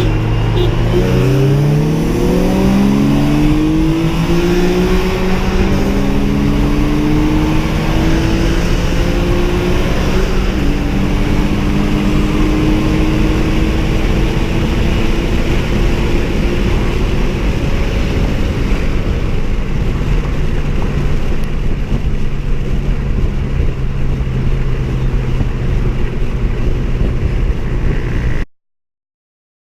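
Car engine accelerating hard, its pitch rising through the gears with upshifts about 6 and 10 seconds in, then running at a steadier, lower note until the sound cuts off shortly before the end.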